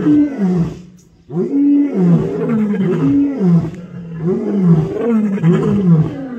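Several lions roaring together in chorus: overlapping calls, one after another, each falling in pitch, with a brief pause about a second in.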